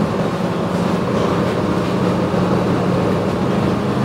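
A cacilheiro river ferry's diesel engines drone steadily, heard from inside the passenger cabin, with a low hum under an even rushing noise.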